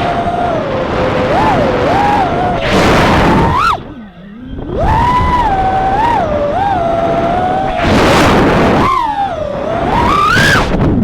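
Small 3-inch FPV quadcopter's brushless motors and propellers whining, the pitch sliding up and down with the throttle. There are several loud throttle punches, and the throttle is briefly cut about four seconds in before the motors spool back up.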